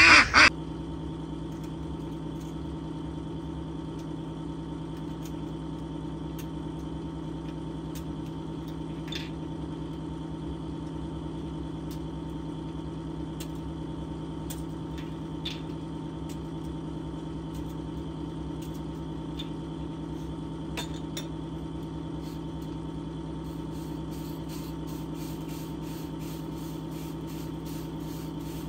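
Domestic geese honking briefly at the very start, then a steady hum with a few faint ticks, fitting dry chickpeas being picked over by hand on a metal tray.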